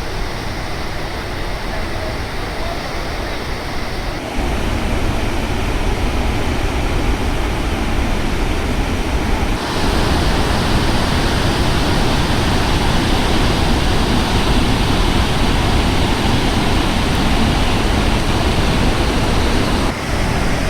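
Victoria Falls at peak flow: a loud, dense, steady rush of falling water and spray. The level steps up abruptly about four seconds in and again about ten seconds in.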